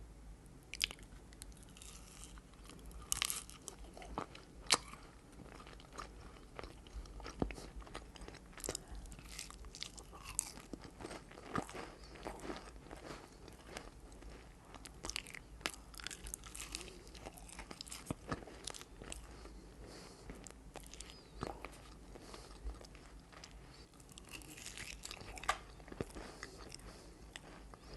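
Close-up eating sounds of baklava: flaky phyllo pastry crunching and crackling under bites, with chewing in between, in irregular sharp crunches.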